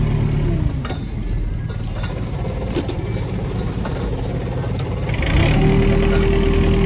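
Boat engine running, easing off to a lower, quieter note about half a second in, then picking up again to a louder, steady higher note about five seconds in, with a few light knocks between.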